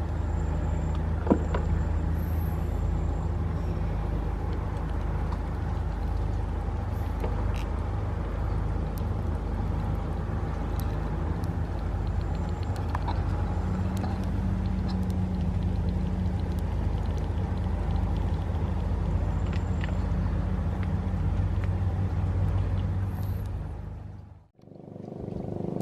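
A motor engine running steadily with a low, even hum, cutting out briefly near the end and then coming back.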